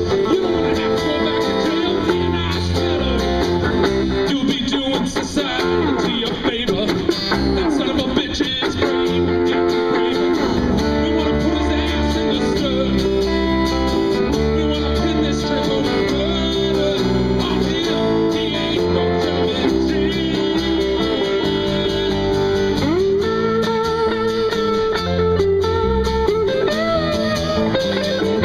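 Live band playing, with guitars strummed and picked over bass; a run of sliding, bending notes comes between about four and nine seconds in.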